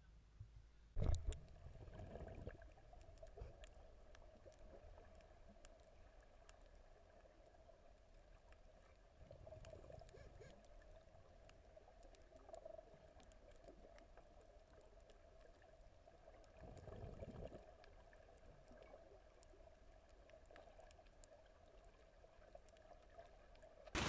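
Muffled underwater sound: a splash about a second in as the camera goes into the sea, then faint bubbling and a faint steady hum, with two brief swells of bubbling later on.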